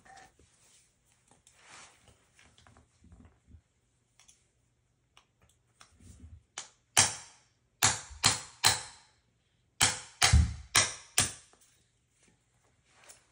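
A hammer tapping a punch to drive the roll pin out of an AR-15 buffer: about nine sharp taps in two quick runs, starting about seven seconds in, after a few seconds of faint handling noise.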